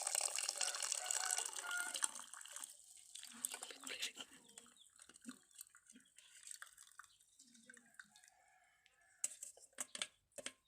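Liquid poured through a strainer into a glass, a splashing trickle for about the first two seconds that then dies away to quieter handling sounds, with a few sharp clicks near the end.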